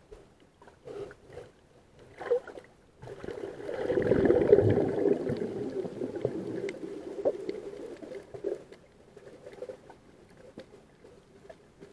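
Water rushing over an underwater camera as it dives toward the reef, a muffled surge that swells about three seconds in and slowly fades. Scattered sharp clicks and crackles sound throughout.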